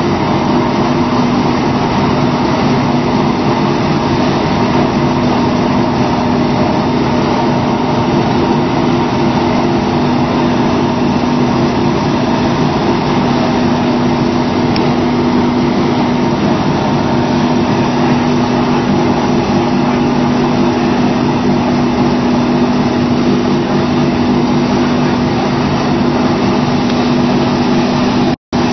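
Briquetting machine running steadily under load, a constant mechanical drone with a steady hum that holds one pitch.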